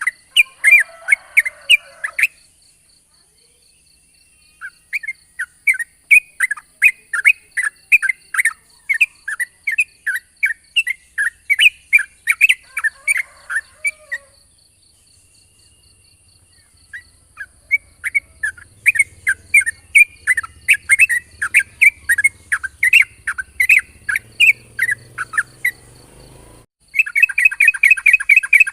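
Yellow-vented bulbul singing long runs of rapid chirps, about three a second, in phrases broken by short pauses, with a faint steady high-pitched tone behind. Near the end the song turns suddenly denser and louder.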